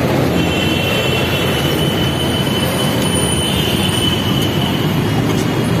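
Heavy road traffic running steadily with a low rumble, and a thin high squeal held for the first four seconds or so.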